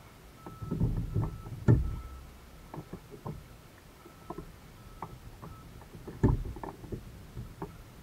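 Irregular knocks and water slaps against a plastic sit-on-top kayak's hull as it rocks on the water. The loudest thumps come about a second in, just under two seconds in, and again around six seconds in, with smaller ticks between.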